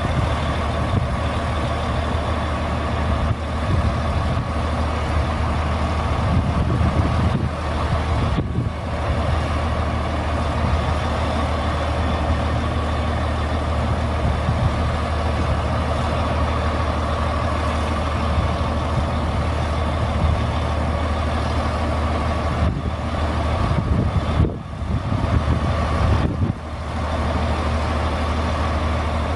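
Crane truck's Caterpillar C12 diesel engine running steadily under PTO load, driving the crane hydraulics while the boom slews, with a steady high whine over the engine note. The sound dips briefly a few times.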